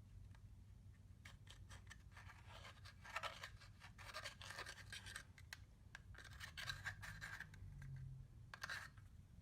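Faint scratching and crackling of makeup being broken up and worked into clear slime, coming in several spells of quick crackles, the busiest about three to five seconds in and again near seven seconds.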